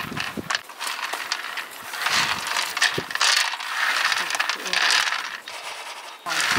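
Hazelnuts clicking and rattling against a metal tray as hands rub and pick through them, stripping off their papery skins. Scattered sharp clicks with a few louder bursts of rattling.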